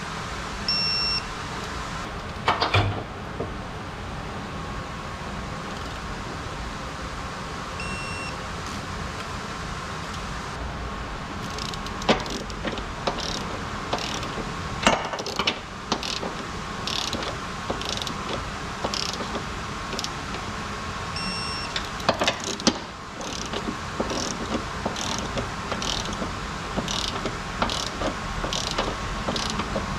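Scattered metallic clicks and knocks of hand tools at work on a car's underbody, over a steady hum, with a run of short ticks about once a second in the second half. A short high beep sounds a few times.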